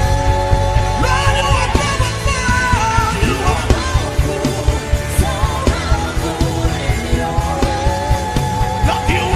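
Worship music: held chords over a steady low beat, with a voice singing and crying out over it.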